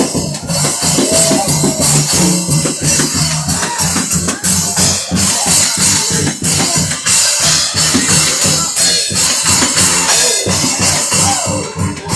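Loud, fast gospel praise music with a driving beat and busy shaken percussion.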